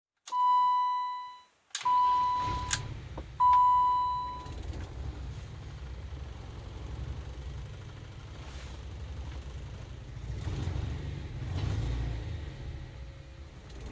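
BMW E30 318is's M42 four-cylinder engine starting about two seconds in, then idling with an uneven, wavering rumble: a rough idle that cleaning the idle control valve has not cured. Three loud, steady beeps sound in the first few seconds.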